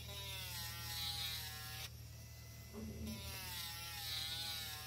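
Mini rotary tool spinning a titanium burnishing bit against the edge of a leather strip to burnish it. Its whine drifts in pitch and drops away for about a second in the middle.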